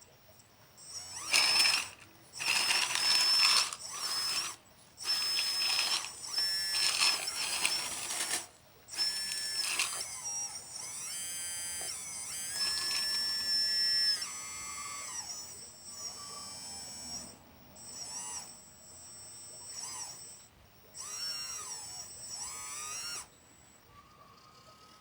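Radio-controlled construction model's electric motors whining in repeated short bursts as the controls are worked. The high pitch rises and falls with each movement, with a few sharper rattly bursts in the first half.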